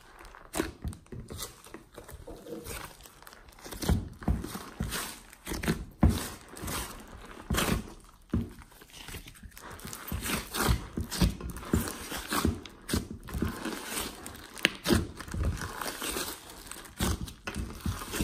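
Hands squishing and kneading glossy slime mixed with clay and glitter, making a steady run of irregular clicks, pops and crackles as it is folded and pressed.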